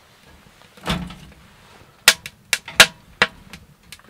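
Firewood being handled for a wood stove: one dull thud about a second in, then a quick, irregular run of sharp wooden knocks and cracks.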